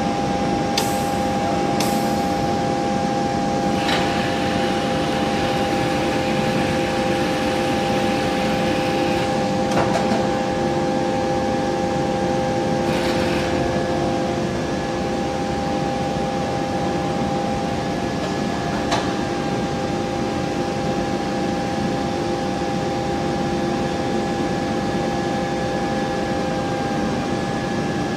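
Automatic forging line machinery with its induction heating furnace running: a steady mechanical hum carrying several high, steady tones, with a few faint clicks and knocks scattered through.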